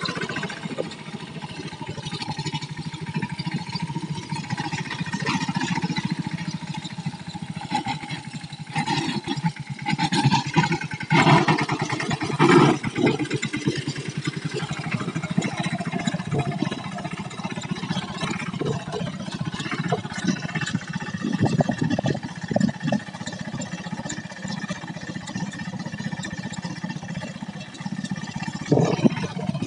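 Mahindra mini tractor's diesel engine running steadily under load as it pulls a spring-tine cultivator through tilled soil. A few louder knocks and rattles come about ten to thirteen seconds in.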